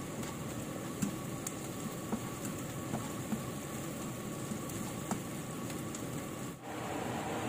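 Broccoli and cauliflower stir-frying in a pan on a gas stove: a steady sizzle, with light clicks and scrapes as a metal spatula stirs against the pan.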